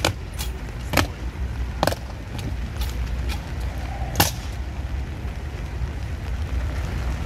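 Guards' boots striking wet granite paving in slow marching steps, a sharp crack about once a second, ending in the loudest stamp about four seconds in as they halt. A steady low rumble runs underneath.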